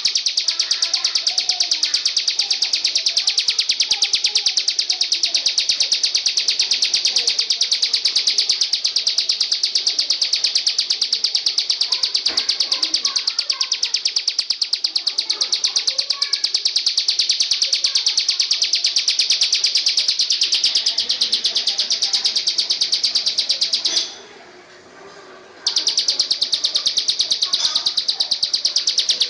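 Insect stridulation: a loud, high, continuous trill of very rapid, evenly spaced pulses. It breaks off for about a second and a half near the end and then resumes.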